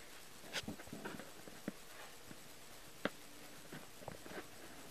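Close handling noise on the microphone from a cat moving against the recording device: soft rustling with a few sharp clicks, the loudest about three seconds in.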